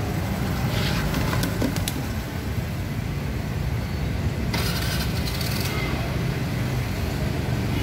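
Motor scooter engines running with a steady low rumble on a wet street, with a few light clicks early and a brief hiss about four and a half seconds in.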